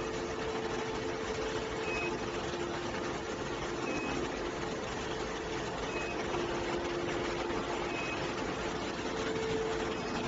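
Steady machinery hum and noise, with a short high-pitched beep repeating about every two seconds.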